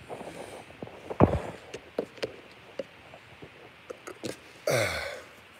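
A phone being handled and moved about on a bed: scattered clicks, knocks and rustles, with a louder thump about a second in. Near the end there is a short sound of about half a second that falls in pitch.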